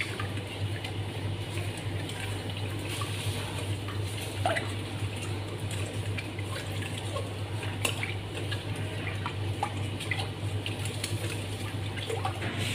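Silicone spatula stirring water, sugar and yeast in a stainless steel bowl: liquid swishing with a few light taps against the metal, over a steady low hum. The yeast is being dissolved to activate it.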